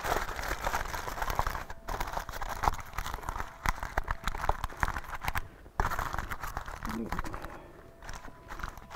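Heavy-duty aluminum foil crinkling and crumpling as hands fold and crimp it shut over a roast in a metal baking tray. It quietens near the end as the foil is pressed down flat.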